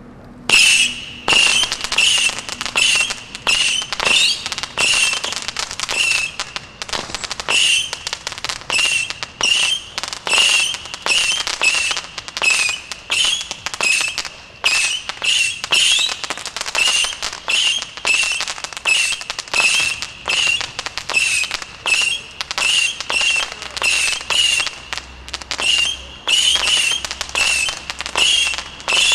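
Extra FX 'Missile Assault' 150-shot firework barrage firing whistling surface-to-air missiles in quick succession, about one and a half to two a second. Each shot is a short shrill whistle over a hissing rush.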